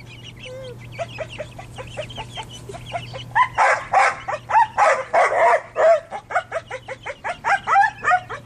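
Chickens clucking in a rapid run of short calls, fainter at first, then louder and quicker from about three and a half seconds in.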